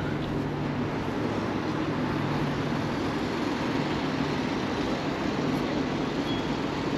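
Steady street-traffic noise, an even rumble with no distinct events, with a faint low hum in the first few seconds.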